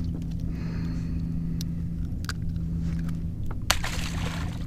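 Steady low rumble of wind and water on the kayak, with a constant low hum underneath. A few sharp clicks and brief rustles of a soft-plastic lure and tackle being handled.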